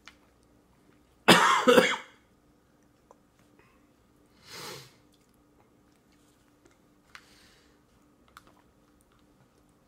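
Coughing: a loud burst of about three quick coughs about a second and a half in, then a single softer cough about three seconds later. A few faint clicks follow.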